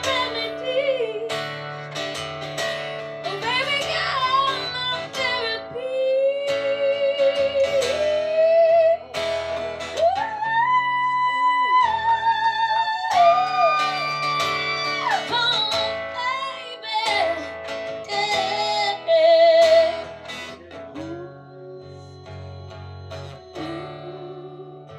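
Solo female voice singing long, sliding, held notes with vibrato over a strummed acoustic guitar, performed live. The singing and strumming get quieter over the last few seconds.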